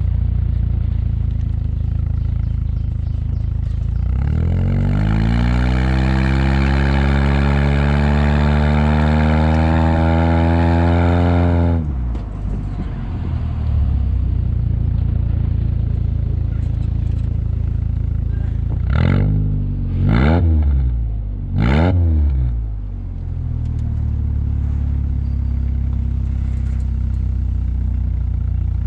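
Proton Waja's aftermarket S-Flow exhaust with extractor headers, idling, then revved in one long rising rev that holds for a few seconds and drops back sharply. A little later it is blipped three times in quick succession and settles back to idle.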